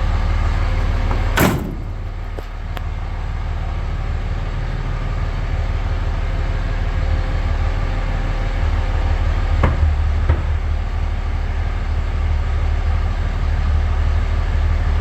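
Truck engine idling steadily, with one sharp knock about a second and a half in and two lighter clicks near the ten-second mark, as a seed wagon is hitched up.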